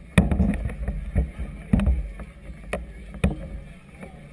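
Low wind and water rumble picked up by an action camera on a moored vessel in strong wind, broken by several sharp knocks about a second apart.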